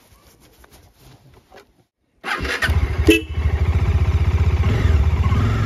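Faint rustling of gloves being pulled on, then, after a brief silence about two seconds in, a motorcycle engine comes in loud and runs steadily with an even low pulse.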